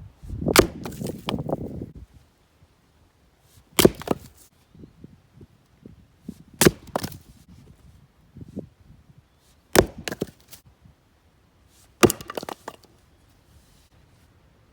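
Helko axe splitting hard zelkova (keyaki) rounds: about five sharp strikes, one every three seconds or so, a few followed by quieter knocks of the wood. Rustling and crunching underfoot in the first couple of seconds.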